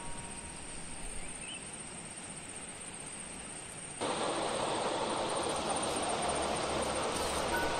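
Outdoor ambience: an even, hissing background noise with no distinct events, becoming louder about four seconds in.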